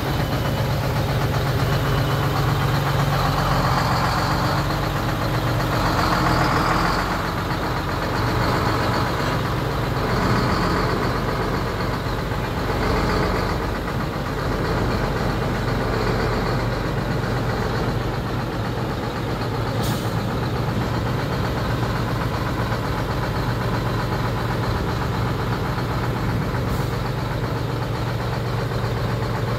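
Mobile crane's engine running steadily, swelling several times in the first half as it is revved, with two brief clicks in the second half.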